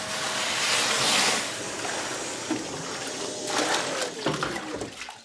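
Kärcher WD 3.200 wet-and-dry vacuum sucking water out of a sink: a steady rushing hiss that breaks into irregular gurgling slurps about three and a half seconds in.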